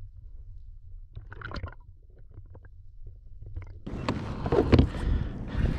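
Muffled underwater rumble of water around a camera held below a kayak, with a few faint knocks. About four seconds in the sound switches to louder open-air noise with sharp knocks from a fishing rod and reel being handled during a fight with a hooked tuna.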